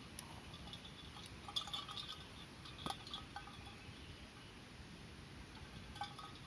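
Wood fire burning in a mont-bell Folding Fire Pit, crackling quietly with scattered sharp pops and a few brief high pings; the loudest pop comes about three seconds in.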